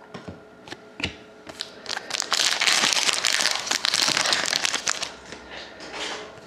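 Foil trading card pack wrapper being crinkled and torn open, with a few sharp clicks from handling before it and a dense stretch of crinkling in the middle.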